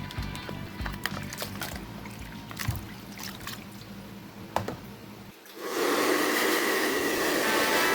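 Small clicks and taps of plastic parts being handled. About five and a half seconds in, a small electric fan motor starts and runs with a steady whirring hum.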